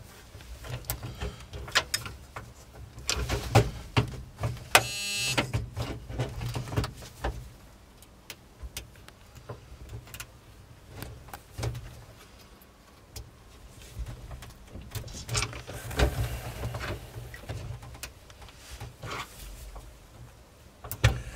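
Irregular small clicks, taps and scrapes of hands and a pin working at a pickup truck's dashboard ignition lock cylinder, trying to release the drilled-out old cylinder, with a brief buzzing rattle about five seconds in.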